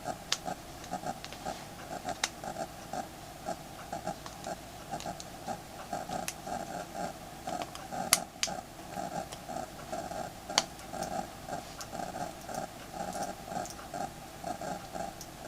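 A handful of sharp small clicks, the loudest about 8 seconds in, from phone parts being handled and fitted during reassembly. Under them runs a continuous, unevenly pulsing mid-pitched background sound.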